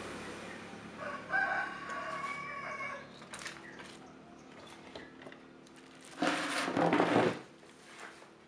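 A rooster crows once, starting about a second in and lasting about two seconds. About six seconds in, a louder rustle of plastic bubble-wrap sheeting being handled lasts about a second.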